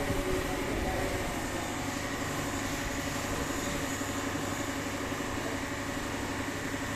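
A steady mechanical hum, like an engine or machine running without change.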